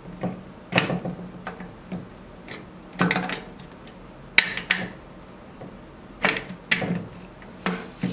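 Irregular metallic clicks and clacks as a replacement lock cylinder is pushed into a T-handle vending machine lock, with knocks from the acrylic display case being handled.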